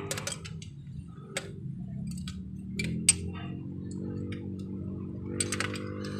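Irregular sharp metallic clicks and taps of hand tools and parts on the exposed rocker arms and camshaft of a Toyota Corolla's cylinder head. The loudest click comes about three seconds in. A low steady hum runs underneath.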